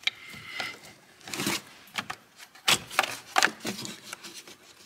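Irregular clicks, knocks and scraping as a Saab 9-5's plastic brake booster vacuum pipe is worked by hand into place around the booster, with a brief squeak near the start.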